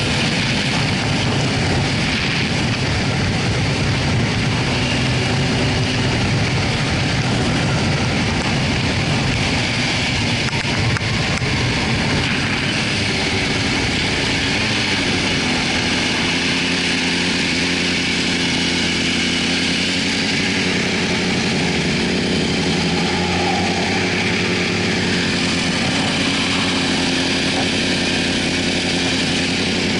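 2004 Yamaha YZF-R6's inline-four engine running under way with wind rush on the helmet camera, then easing off; from about halfway in the bike idles steadily at a stop.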